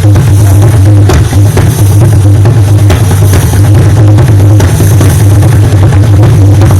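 Srikhol (khol) drum played fast and without a break to imitate a running train: a steady, loud booming from the bass head under a dense run of sharp strokes.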